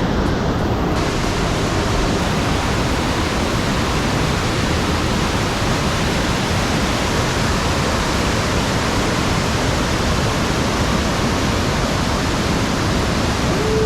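Steady, dense rush of water falling from a large waterfall about 45 metres high, an even noise with no break.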